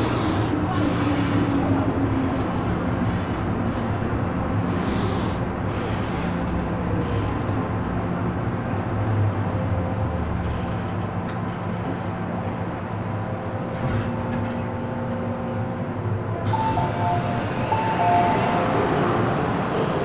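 MTR M-Train electric multiple unit heard from inside the carriage as it slows into a station: steady running and wheel rumble, with the traction motor whine falling in pitch early on. Near the end comes a short run of stepped beeping tones, the door chime as the train stands at the platform.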